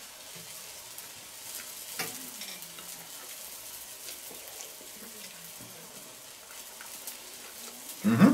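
Steady sizzling and crackling from the charcoal grill, with small clicks of a knife and fork on a plate. Near the end comes a short voiced hum, the loudest sound.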